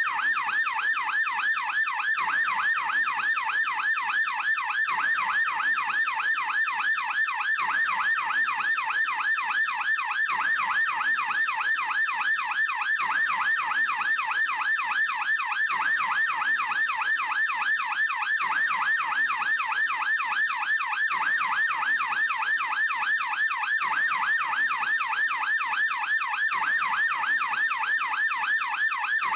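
Swiss police car siren in fast yelp mode: an electronic wail sweeping rapidly up and down in pitch several times a second, steady and unbroken.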